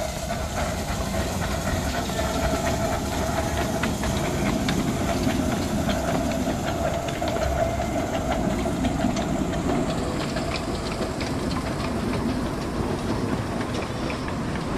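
Miniature live-steam locomotive and its ride-on carriages running past on the track: a steady hiss of steam with many light clicks of the wheels on the rails.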